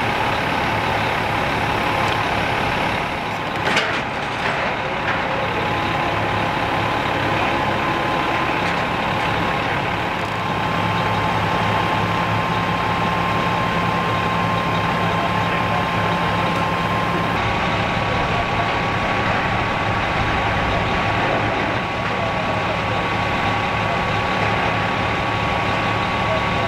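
Flatbed tow truck's engine running steadily with a thin, steady whine that steps up slightly in pitch twice, as from the hydraulics. A single sharp knock about four seconds in.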